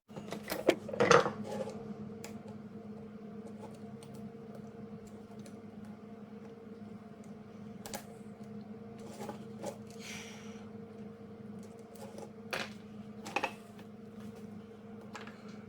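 Small metal alternator parts clinking and scraping as they are handled, with a loud clatter about a second in and scattered clicks after, over a steady hum.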